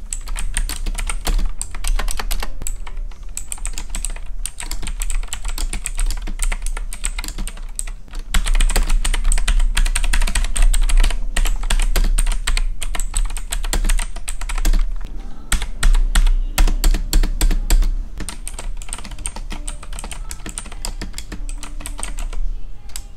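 Fast typing on a K880 full-size mechanical keyboard with blue switches: a dense, rapid stream of key clicks. It is loudest in the middle and eases off over the last few seconds.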